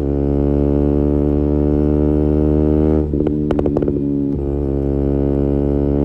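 KTM Duke 125's single-cylinder four-stroke engine through an Akrapovic exhaust, running at steady revs on the move. About three seconds in the note breaks off in a quick run of sharp exhaust crackles, as on a gear change or lift of the throttle, then settles back to a steady drone.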